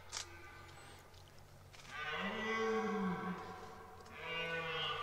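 Red deer stag roaring during the rut: a long, deep bellow about two seconds in that drops in pitch as it ends, then a second roar starting near the end. A brief click comes right at the start.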